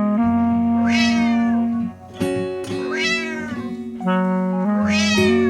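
Background music with steady held notes, with a cat meowing over it three times, about two seconds apart.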